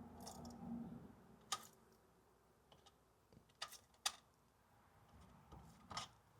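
Near silence with a few faint, sharp clicks spread out over several seconds, like small tool or hand-handling taps.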